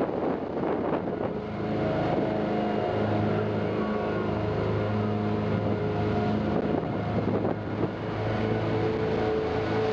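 Tour motorboat's engine running steadily under way, heard from on board; its tone becomes steady about a second and a half in.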